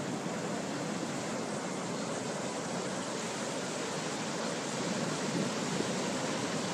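Steady rushing of wind and surf: an even noise with no breaks or swells.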